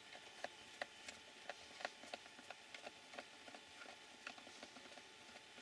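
Faint, irregular light clicks and taps of small plastic parts and wiring being handled and fitted on a Tamiya XV-01 PRO radio-controlled car chassis.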